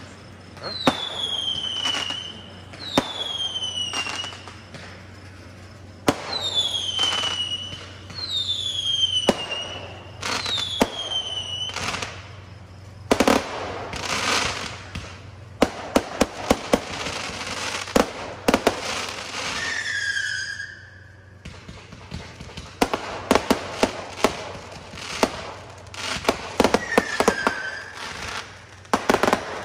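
Aerial fireworks going off: about five whistles, each falling in pitch, among sharp bangs, then a long spell of dense crackling from bursting shells, with more bangs and a couple of short falling whistles later on.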